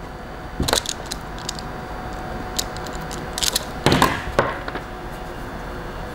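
Small clicks and snaps from electrical cable, a crimp terminal and hand tools being handled: one about a second in, then a louder cluster about four seconds in. Under them runs a faint steady hum.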